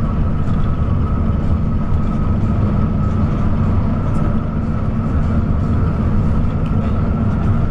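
Intercity bus running at steady speed on a highway: continuous engine and road rumble with a constant high whine above it.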